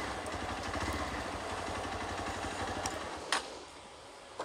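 Hero Xpulse single-cylinder motorcycle engine idling with a steady low pulse. About three seconds in there is a click and the engine sound drops away.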